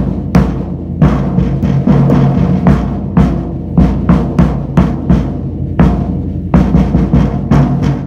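1967 Rogers Holiday 20-inch bass drum, unmuffled, struck by hand with a felt beater about two to three times a second, each hit ringing on with a long low boom. The drum's spurs rattle along with the hits.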